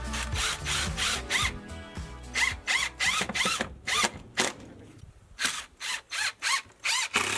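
Cordless drill driving screws into wood in a quick series of short trigger bursts, each a brief whine that rises and falls.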